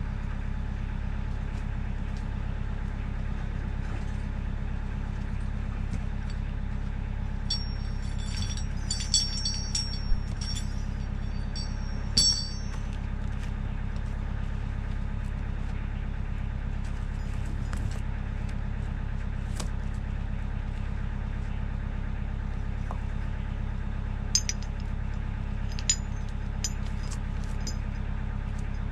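A diesel tractor engine idling steadily in the background. Over it, a steel chain clinks and rattles in a few bunches, about eight to twelve seconds in and again briefly around twenty-five seconds, as it is wrapped around a tree stump for winching.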